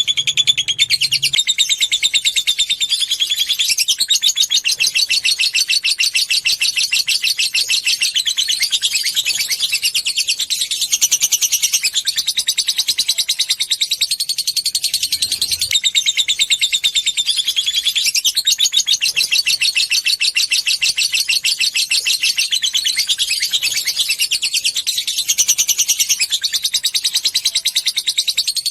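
Lovebird chattering in a long, unbroken, rapid high-pitched trill: the 'ngekek panjang' song, its phrases shifting every few seconds.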